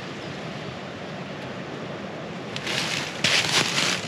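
Steady rushing of wind through a tall red pine forest. About two and a half seconds in, loud crunching and rustling sets in, footsteps on the dry pine-needle floor.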